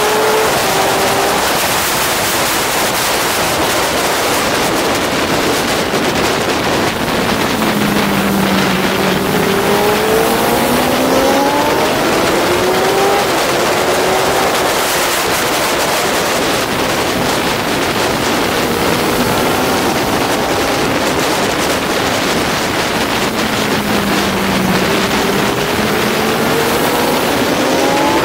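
Honda CBR600RR inline-four engine at racing speed, its pitch climbing again and again as it pulls through the gears, mostly buried under loud wind rushing over the microphone.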